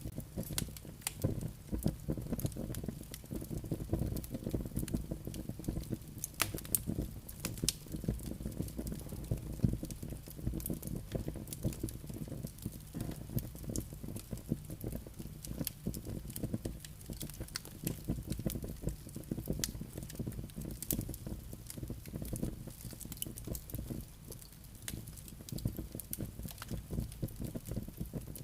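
Wood fire burning in a fireplace, logs crackling and popping irregularly over a low steady rumble of the flames.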